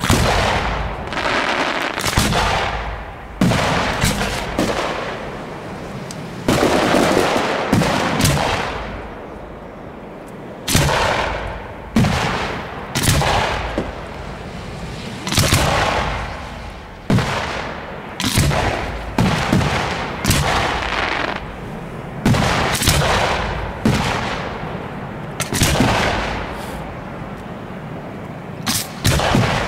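Aerial firework shells bursting in quick succession, about one sharp bang a second, each followed by a trailing echo that dies away.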